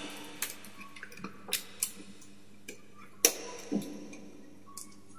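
Irregular sharp plastic clicks and taps as PVC conduit junction boxes and conduit pieces are handled and pushed into place with wires, about seven in all, the loudest about three seconds in.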